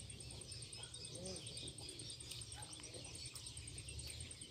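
Faint outdoor ambience with many small birds chirping in the background, short repeated chirps throughout, over a low rumble.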